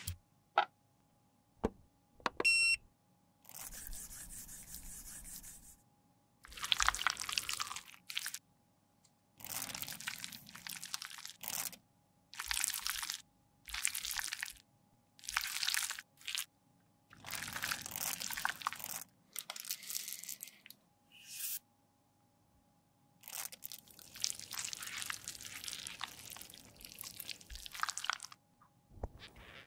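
Close-up sticky scraping and squelching of liquid lip gloss being worked with spatulas in a glass dish and piped into a clear plastic tube, in repeated bursts of one to two seconds with short pauses between.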